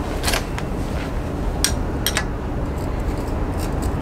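Wrench clicking and clinking on a motorcycle's exhaust flange bolts as they are loosened: a handful of sharp, irregular metal clicks.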